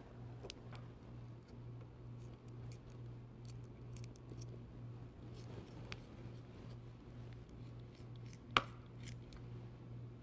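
Kitchen shears snipping loose skin from around the neck of a raw turkey: a scatter of small sharp clicks and snips, with one louder snap about eight and a half seconds in. A faint steady low hum runs underneath.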